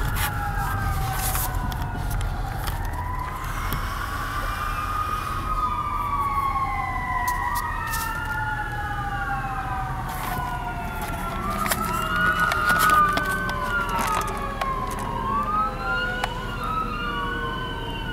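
Emergency vehicle sirens heard from inside a car: several rising-and-falling sweeps overlap one another, and a long tone slowly falls in pitch throughout.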